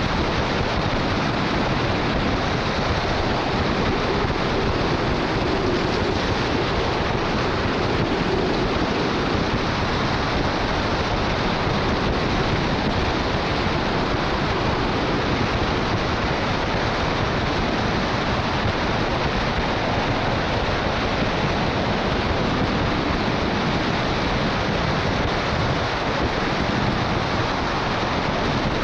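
Steady rushing wind on the roof-mounted camera of a truck driving at highway speed in the rain, blended with hiss from its tyres on the wet road.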